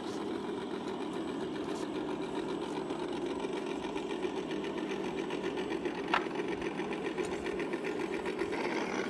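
An RC scale crawler's electric motor and gearbox whirring steadily as it crawls slowly over a wooden-slat obstacle, with one sharp click about six seconds in.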